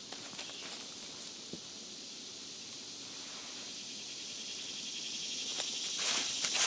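A steady, high insect chorus, with light rustling of tent fabric and plastic sheeting being handled. The rustling grows louder near the end.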